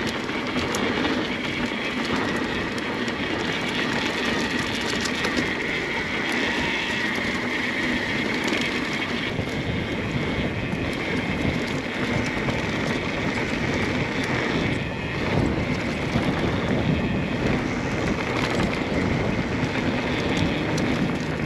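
Mountain bike riding down a dirt trail: steady rush of wind over the camera microphone with tyre noise on the dirt and small rattling clicks from the bike.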